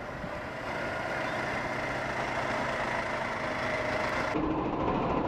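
Road traffic heard from a bicycle-mounted camera: a Renault box truck's diesel engine running steadily close by. The sound changes abruptly about four seconds in.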